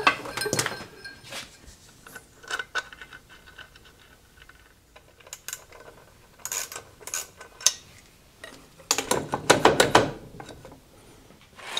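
Metal clinks and knocks of tools and bolts being handled at a motor mount, with a socket ratchet clicking in a quick run about nine seconds in as the mounting bolts are tightened.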